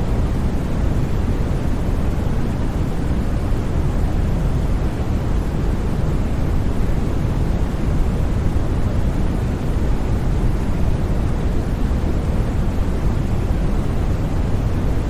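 Steady white noise: a constant, unchanging rushing hiss with most of its weight in the low range.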